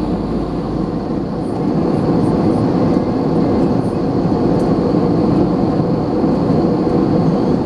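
Steady rushing cabin noise of an Airbus A321 in flight, from its two CFM56-5B engines and the airflow over the fuselage, heard from a seat behind the wing. The deepest rumble drops away about a second in.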